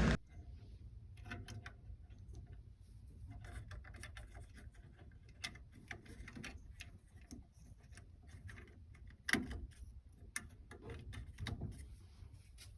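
Faint, irregular clicks and light knocks, with a louder knock about nine seconds in.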